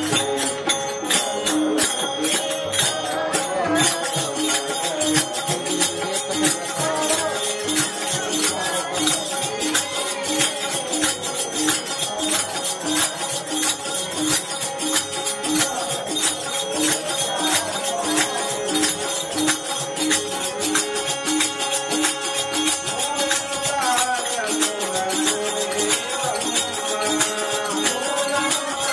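Devotional bhajan music: a harmonium plays sustained notes while hand-held jingling percussion keeps a fast, even beat throughout.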